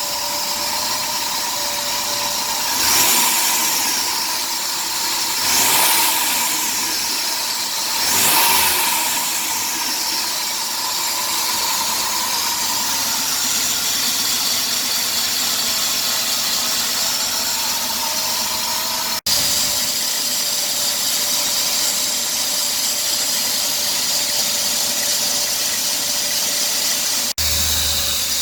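2003 Dodge Grand Caravan's 3.3-litre V6 engine running with a steady hissing and a high whine, revved up three times in the first nine seconds, the noise swelling and rising in pitch with each rev. The noise persists despite a new idler pulley, belt tensioner pulley and power steering pump.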